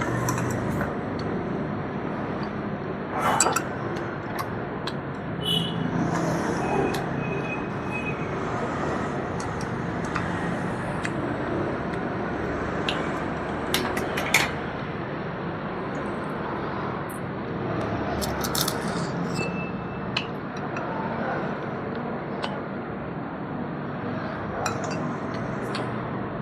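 Dishes and cutlery clinking and scraping now and then during a meal, with a few sharper clinks, over a steady background hiss.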